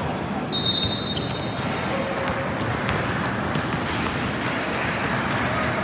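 A referee's whistle blows once, briefly, about half a second in, over a gym's steady crowd chatter and a basketball being dribbled on the court.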